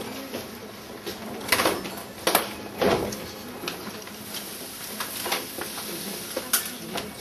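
A series of sharp knocks and clatters at irregular moments, the loudest three coming about one and a half to three seconds in and another near the end, over steady room noise.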